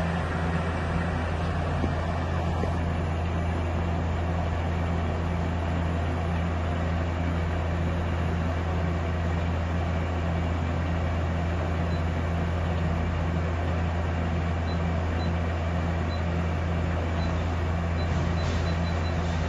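Okuma LB3000EX CNC lathe running its spindle at a steady 300 RPM, a constant low mechanical hum. A few faint high ticks come in the last third.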